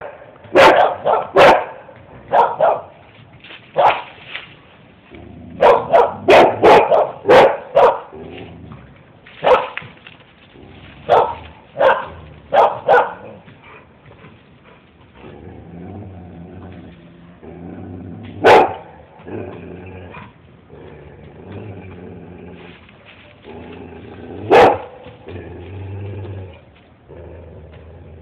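A dog barking at a cat, in quick runs of loud sharp barks over the first half. After that comes a lower, steadier sound, broken by a single bark about every six seconds.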